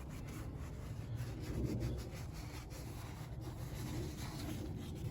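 Irregular rubbing and scraping, made by hand, over a steady low rumble.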